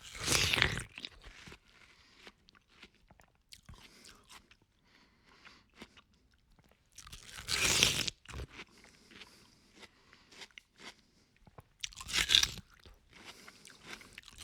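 Someone eating watermelon: three loud crunchy bites into the juicy flesh, about the start, halfway and near the end, with quieter wet chewing and slurping in between.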